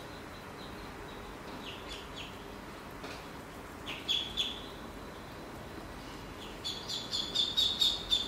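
Duckling peeping: a few short high chirps, then a quick run of about eight peeps near the end.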